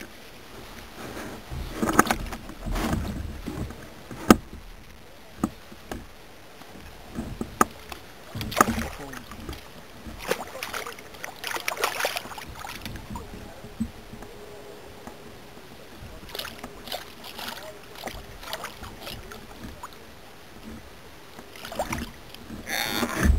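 Irregular knocks, clicks and short splashy bursts of a bass being landed by hand beside a plastic kayak: gear bumping the hull and water splashing. There is a louder rush of noise near the end as the dripping bass is lifted out.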